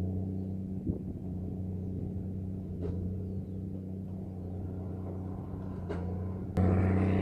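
Tractor engine running steadily with a low hum. It gets suddenly louder near the end.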